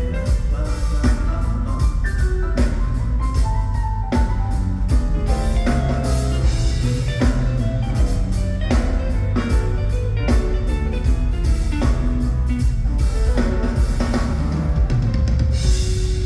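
Instrumental pop music with a drum kit keeping a steady beat under bass and melodic instrument lines, with no singing.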